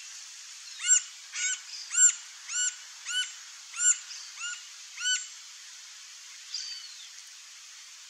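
Green-barred woodpecker calling: a series of about eight clear notes, each rising then falling in pitch, at about one and a half a second, followed a little later by a single fainter falling note.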